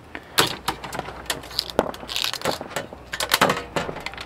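Screwdriver prying an LED matrix array out of an aluminium chassis front panel, where it is held by clips: an irregular run of sharp metallic clicks and scrapes, busiest a little past three seconds in.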